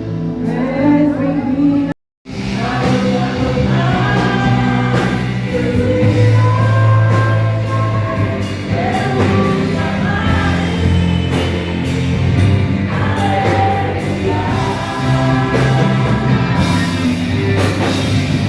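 Worship music with singing over a steady instrumental backing. The sound cuts out completely for a moment about two seconds in, then the music resumes.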